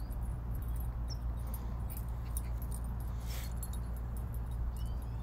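Steady low outdoor rumble with faint, scattered light jingling and a few short, high rising chirps.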